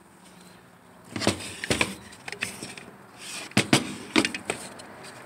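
A partly dismantled Stihl MS 170 chainsaw's plastic housing being picked up and turned over by hand: a quick series of knocks and clicks of plastic parts and a light rustle, starting about a second in.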